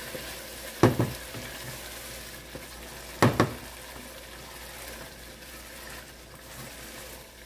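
A tomato stew sizzling and simmering steadily in a metal pot as it is stirred with a wooden spoon. The spoon clunks loudly against the pot twice, about a second in and again about three seconds in.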